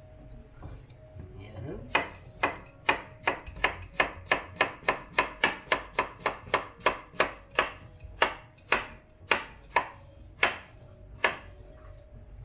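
Chef's knife slicing a cucumber on a wooden cutting board: a steady run of sharp knocks, about three or four a second, starting about two seconds in and spacing out to a few separate chops near the end.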